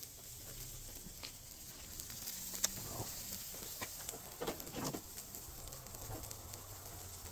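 Chicken sizzling on a grate over glowing charcoal, a steady hiss with scattered crackles and pops.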